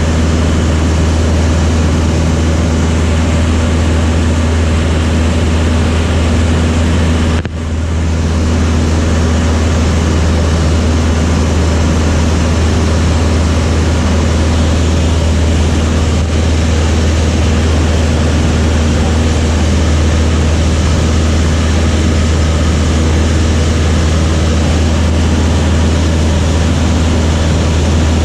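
Light propeller aircraft's piston engine and propeller droning steadily in flight, heard from the cockpit, with one brief dip in level about seven seconds in.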